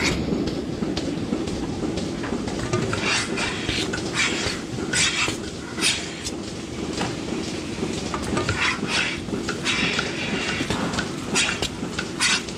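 Milking parlour machinery running with a steady rumble, broken about a dozen times by short hissing bursts of air drawn into the milking cluster's teat cups as they are put onto the cows' teats.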